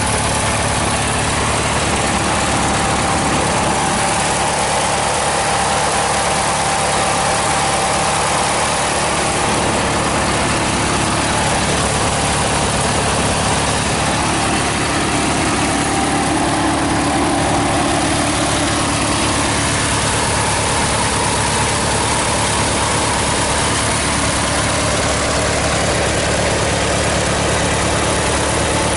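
The engine of a 1986 Murray 6-39004 garden tractor, an 18-horsepower 18/42 model, idling steadily at an even pitch.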